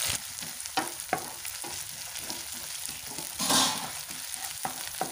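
Chopped onions and ginger-garlic paste sizzling in hot oil in a non-stick pan, stirred with a wooden spatula that taps and scrapes the pan, with one louder scrape about three and a half seconds in.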